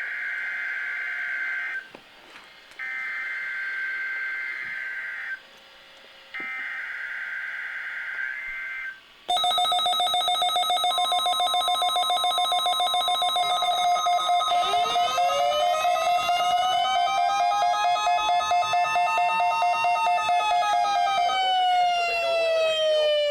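Three bursts of Emergency Alert System SAME header data, each about two seconds with short gaps, a buzzy modem-like screech. About nine seconds in, a loud alarm starts: several steady tones sound together with a fast pulse. From about fifteen seconds in, tones that glide up and then fall away join it, like a siren.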